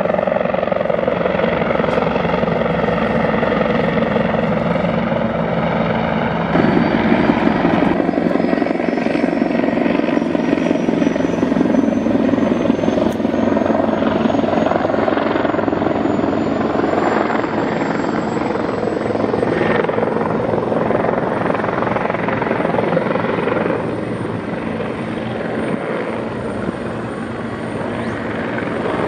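Bell 412 twin-turbine helicopter with a four-blade main rotor flying close by, a loud steady rotor and engine sound. A thin high whine climbs slowly and then holds. The sound gets louder about six seconds in and eases off near the end.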